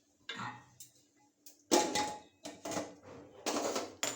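Metal cookware and utensils clattering: a soft scrape, then from under two seconds in a run of sharp knocks and clinks, one ringing briefly.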